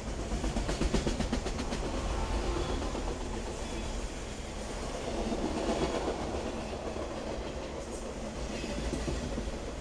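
Autorack freight cars of a fast CSX train rolling past, a steady rumble of steel wheels on rail with a run of rapid clickety-clack over the rail joints in the first couple of seconds and a few more clicks near the end.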